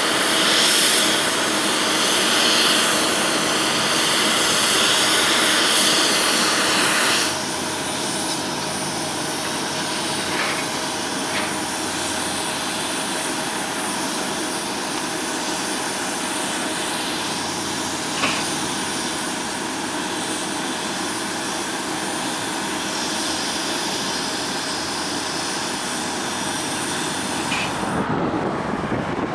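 Steady jet-turbine whine and hiss on the ramp beside a parked Boeing 767-277. The sound is louder for about the first seven seconds, then drops suddenly to a lower, steadier level. Near the end it gives way to road traffic and wind noise.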